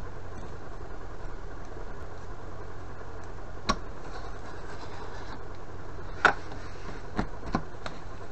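A knife being drawn along a straight edge through an EVA foam floor tile: faint scraping with a few sharp clicks and taps, the loudest about six seconds in, over a steady low hum.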